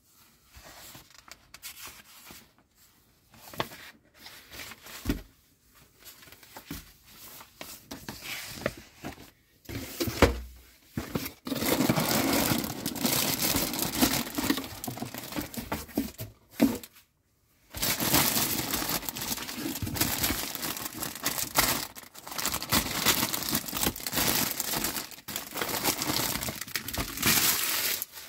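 Clear plastic bag wrapping crinkling steadily as bagged plastic model parts are handled and unwrapped, in two long stretches with a short break in the middle. Before that, about ten seconds of light taps and rustles, with a low thump near the start of the crinkling.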